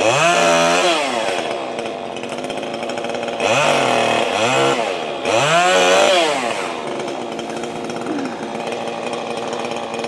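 Two-stroke chainsaw revving up and dropping back four times in the first seven seconds, then running steadily at a lower pitch.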